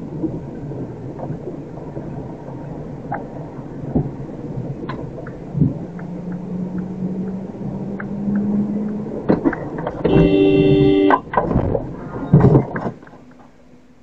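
Vehicle engine and road noise from a dashcam, steady with a slowly rising engine tone. Near the end a vehicle horn blares for about a second, followed by a few loud knocks before the sound drops away.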